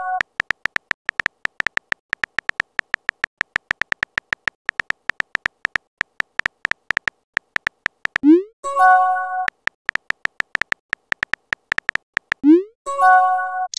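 Synthetic keyboard-tap clicks from a texting-story app as a message is typed out: short high ticks, several a second. Twice, about 8 and 12.5 seconds in, a quick rising pop and a brief chime mark a message being sent.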